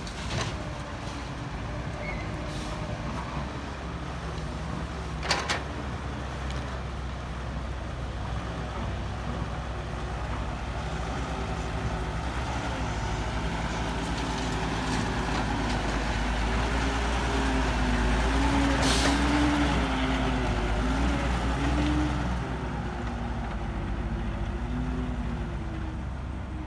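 Heavy diesel construction machinery running, its engine note rising and falling as it works under load. There is a sharp knock about five seconds in and a brief hiss of air later on.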